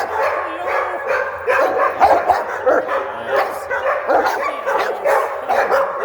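Several dogs barking, yipping and whining at once in a continuous excited chorus, typical of dogs greeting a person.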